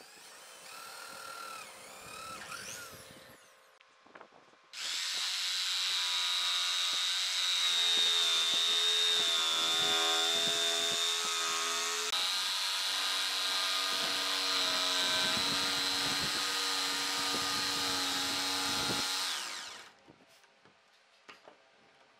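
A drill bores into a pine disc for about three seconds, its pitch wavering. Then, about five seconds in, an electric Makita jigsaw starts and runs steadily for about fifteen seconds cutting through the thick pine, and stops near the end.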